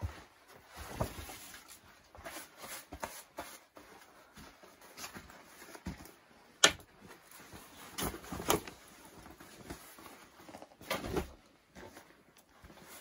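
Scattered handling noises: rustling of canvas and clothing, footsteps and a few knocks. The sharpest is a single click about six and a half seconds in, with a cluster of louder knocks near the end.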